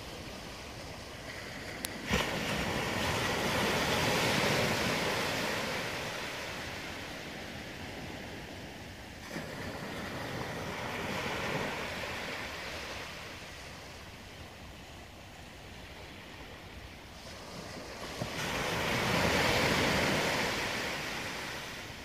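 Small ocean waves breaking and washing up the beach, the surf swelling three times. There is a brief click about two seconds in.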